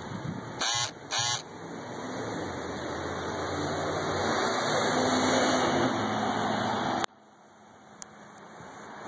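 A motor vehicle passing in the street, its engine and road noise swelling and then dropping away suddenly about seven seconds in, with two short beeps about a second in.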